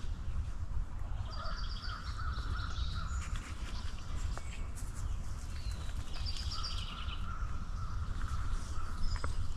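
Wild birds calling outdoors: two similar rapid, chattering phrases a few seconds apart, over a steady low rumble.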